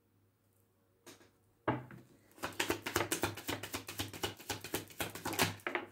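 A deck of oracle cards being shuffled by hand: a click and a tap, then a fast run of crisp flicks, about eight a second.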